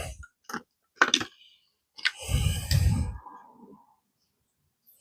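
Hands working on a motorcycle fuel pump assembly: a few sharp clicks, then a louder rustling scrape lasting about a second, starting about two seconds in.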